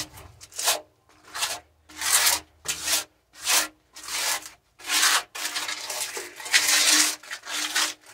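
Wall putty being spread over a rough masonry wall with a small hand-held applicator: about a dozen quick, irregular scraping strokes, with one longer sweep near the end.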